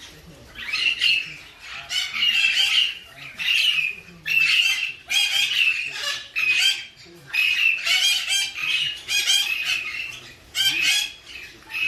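Galah (rose-breasted cockatoo) calling over and over, a long run of short calls about one or two a second. This is the male's courtship calling to a female.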